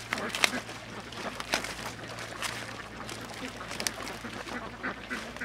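Hands digging and groping in wet mud, giving irregular short squelches and smacks, a few of them sharper, about half a second in and again a second and a half in.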